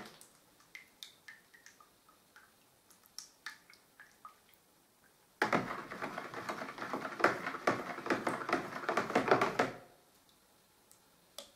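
A stirring stick working wallpaper paste in a plastic bucket, knocking and scraping against the sides as the paste swells and thickens. Scattered light knocks at first, then about four seconds of fast, louder stirring starting around five seconds in.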